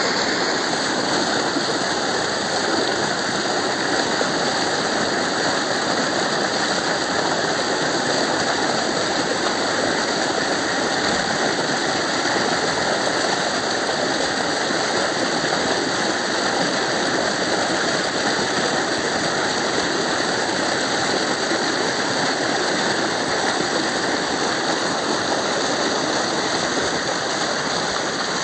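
Water gushing from a pump's outlet pipe and splashing into a concrete tank, a steady rush that does not let up.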